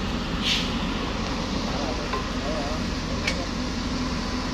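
Steady low machine hum with faint distant voices, a brief hiss about half a second in and a sharp click about three seconds in.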